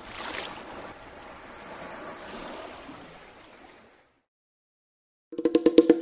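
A soft rushing noise, like surf or wind, that fades away over about four seconds. After a second of silence, a plucked guitar starts rapid repeated notes near the end, the intro of the next song.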